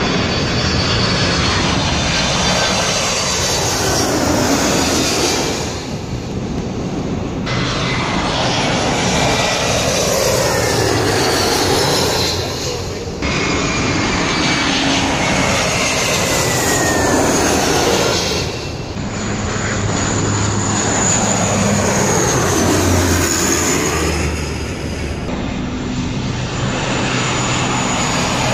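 Jet airliners passing low overhead on landing approach, among them a Boeing 767 and an Airbus A321, in a string of short clips that change abruptly at each cut: loud engine noise with a high, slowly falling fan whine, swelling into a sweeping, phasing whoosh as each aircraft goes over. Near the end a Dash 8 Q400 turboprop takes over with a steady low propeller hum.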